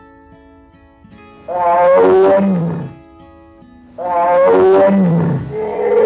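A large animal's drawn-out call, repeated identically three times about two and a half seconds apart, each falling in pitch, over background music; a different, steadier call starts near the end.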